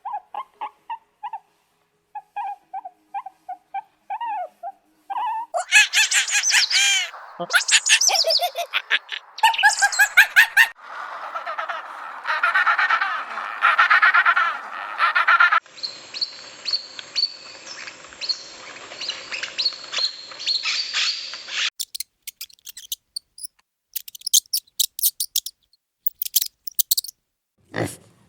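A sequence of separate animal-call recordings cut one after another: short repeated chirps, then fast chirping trills and whistles, then a run of quick high clicks near the end.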